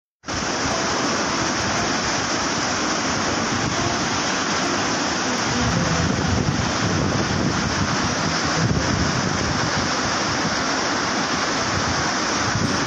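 Muddy flash-flood water rushing down a riverbed in a steady, loud noise of churning water, growing heavier in the low end about halfway through.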